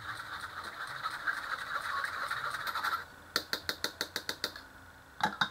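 A metal spoon scraping and stirring thin batter through a stainless steel mesh sieve, a steady scraping for about three seconds. Then a quick run of about ten sharp taps as the spoon is knocked against the sieve.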